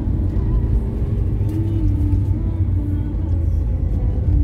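Car engine and road noise heard from inside the cabin as it drives along: a steady low rumble.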